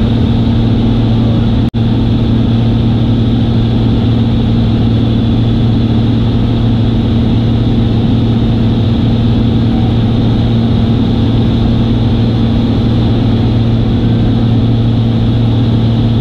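Single-engine light aircraft's piston engine and propeller droning steadily in cruise flight, heard inside the cockpit. There is a split-second dropout in the sound about two seconds in.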